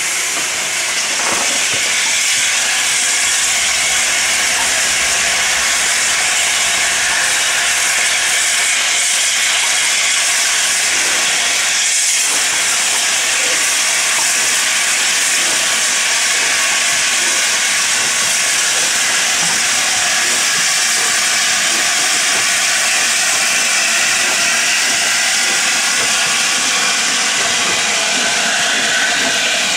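LNER A4 Pacific steam locomotive 4464 Bittern moving off with its train, with a loud, steady hiss of escaping steam as the engine and then its coaches pass close by.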